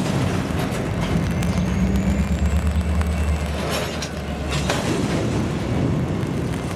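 A pair of EMD GP35 diesel locomotives working a train at low speed: the engines throttle up with a deep, steady rumble and a faint rising whine, and the engine note eases about five seconds in. A few scattered clanks come from the train.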